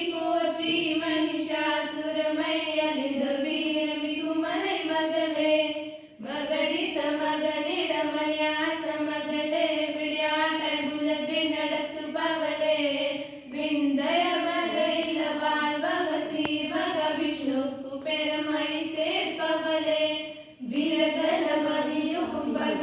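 Girls singing a chant-like song without accompaniment, in long phrases of about seven seconds with brief breaks for breath between them.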